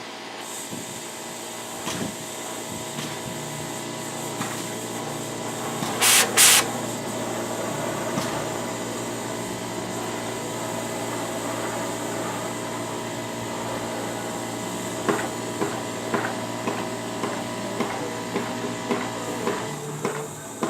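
Gas torch burning steadily while it heats a steel round bar for bending. Two sharp bangs come about six seconds in, and irregular light metal knocks follow over the last few seconds.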